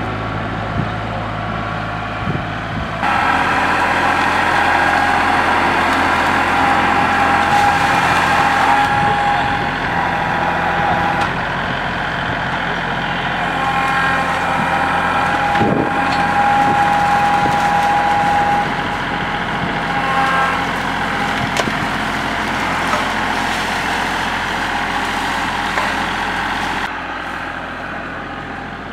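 Kubota compact tractor's diesel engine running while it works a front-loader grapple, with a steady high whine through much of it. The sound changes abruptly a few seconds in and again near the end.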